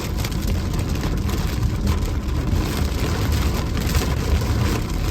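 Steady low rumble of a car driving slowly, heard from inside the cabin: engine and road noise, with faint scattered ticks.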